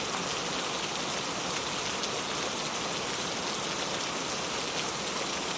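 Gentle rain falling steadily, an even hiss of many drops.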